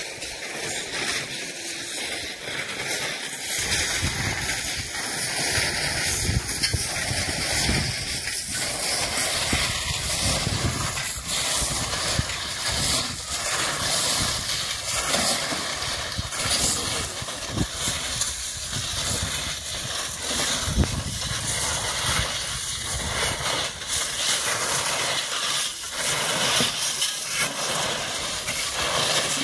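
Crushed stone being shovelled off a lorry bed by hand: steel shovels scraping through the gravel and loads of stone spilling onto the heap, as a constant rustling hiss with irregular scrapes and clatters that come more often from about ten seconds in.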